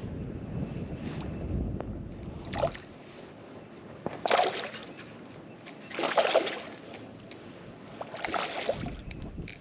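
Wind buffeting the microphone, then four short water splashes about two seconds apart at a kayak on a lake.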